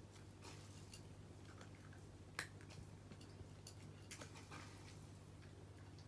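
Cat crunching dry kibble: faint, irregular crunchy clicks, the loudest about two and a half seconds in, over a steady low hum.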